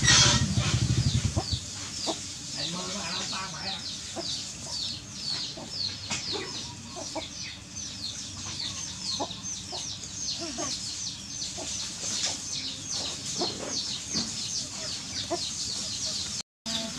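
Chickens in the background: a steady run of short, high, falling peeps several times a second, with a few soft clucks and faint knocks. A brief low rumble sounds at the start.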